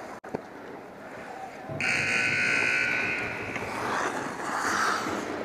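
Hockey arena's period-end horn sounding one long, steady blast, starting suddenly about two seconds in and fading after about a second and a half: the signal that the second period is over.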